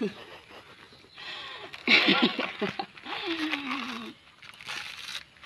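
Fibrous coconut husk being torn off by teeth and hands: rough tearing and rustling of the fibre. About two seconds in there are short vocal sounds, followed by one long call falling in pitch.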